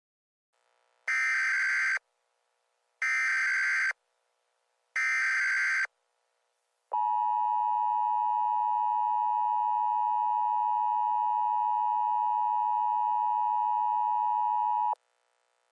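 Emergency Alert System SAME header: three one-second bursts of warbling data tones, about a second apart. These carry the encoded alert message. After them comes the EAS attention signal, a steady tone that holds for about eight seconds and then cuts off sharply, announcing that a spoken alert will follow.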